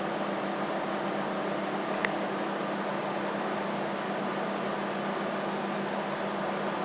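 Microwave oven running with a steady hum and whir, with one sharp snap about two seconds in.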